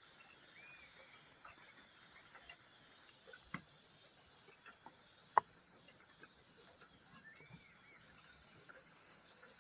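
Steady, shrill chorus of night insects such as crickets, droning on two high pitches without a break. A single sharp click sounds about five seconds in.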